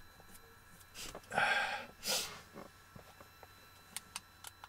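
A person sniffing twice, two short breathy bursts about a second and a half in, followed by several light clicks near the end.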